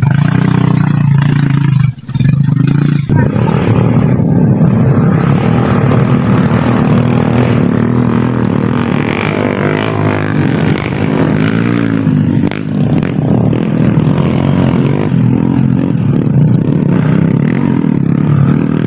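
Motorcycle engine running loudly, then working hard about three seconds in as it climbs a steep slope towing a cart loaded with oil palm fruit bunches. In the middle, the revs rise and fall again and again.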